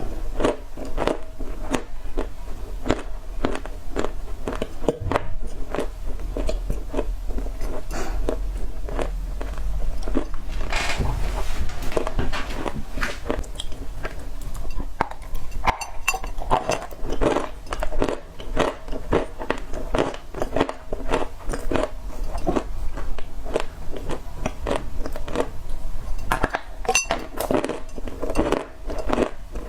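Dry clay being bitten and chewed: a dense, continuous run of crisp crunches and cracks.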